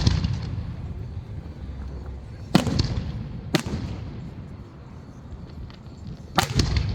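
Aerial fireworks shells bursting overhead: sharp booms about two and a half, three and a half and six and a half seconds in, each trailing off in a rolling echo, with a low rumble between them.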